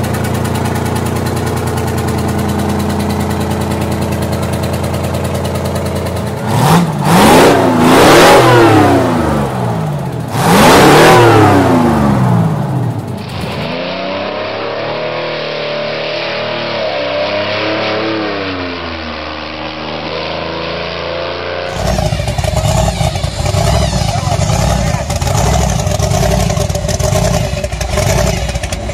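A Detroit Diesel 12V71 two-stroke V12 with twin 6-71 blowers idling steadily, then revved hard twice, its pitch climbing and falling each time, and afterwards running quieter with a wavering pitch. After a cut, a twin-turbo supercharged big-block engine idles with a choppy rumble.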